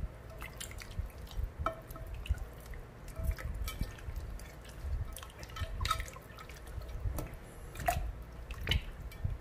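Wet squelching, splashing and dripping as hands rub and turn a whole raw chicken in vinegar and salt water in a glass bowl. Short wet smacks come at irregular moments throughout.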